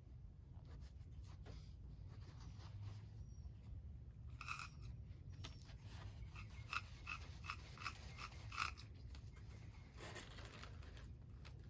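Faint crinkling and handling of exhaust baffle packing material as it is wrapped, with a run of about eight light clicks a little past halfway.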